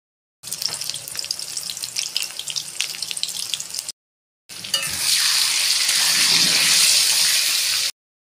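Potato chunks frying in hot oil in a wok: crackling and spitting, then after a short silent cut a louder, steady sizzling hiss. Brief dead-silent gaps at the start, in the middle and at the end are edit cuts.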